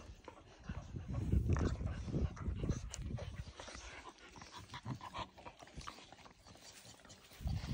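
Cane Corso puppies play-wrestling: irregular dog noises and scuffling, loudest from about one to three seconds in.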